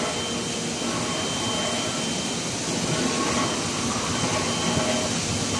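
Steady industrial noise of running furnace equipment: an even rushing hiss with a faint high whistle and a low hum.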